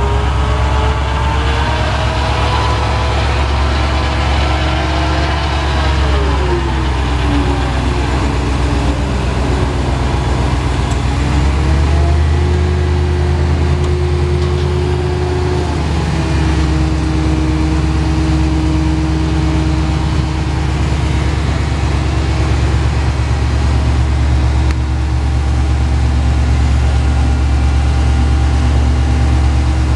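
LPG-fuelled Cat T300 forklift's engine running, with a whine that rises and falls over the first several seconds as the truck drives. From about halfway it settles into a steady whine while the mast lifts the forks high.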